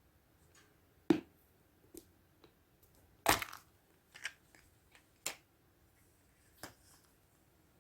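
A Kinder Surprise Maxi chocolate egg being unwrapped and handled: a series of separate sharp crackles and snaps, about one a second, the loudest a little past three seconds in.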